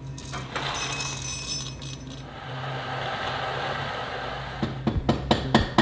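Coffee beans clinking and rattling, then a Niche electric coffee grinder running with a steady grinding whir for about two seconds, followed by a quick run of sharp taps near the end.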